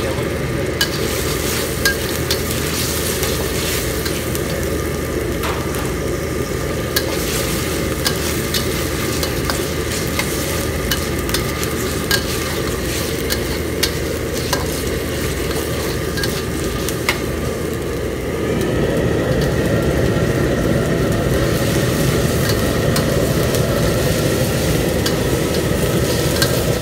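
Raw chicken pieces frying in oil and onion masala in a steel wok, stirred with a metal spatula that clicks and scrapes against the pan, over a steady rush from the gas wok burner. The frying gets louder about two-thirds of the way through.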